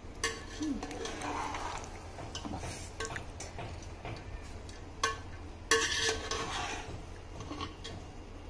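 Long perforated metal spoon stirring and lifting rice in a metal pot, scraping with a few sharp clinks against the pot, the loudest near six seconds in.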